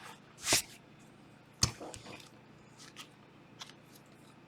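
Quiet handling of trading cards and packaging on a table: a short rustling swish, a sharp click about a second and a half in, then a few faint ticks.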